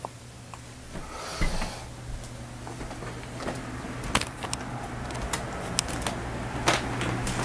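Handheld camera handling noise: scattered clicks and a short rustle about a second in, over a steady low hum.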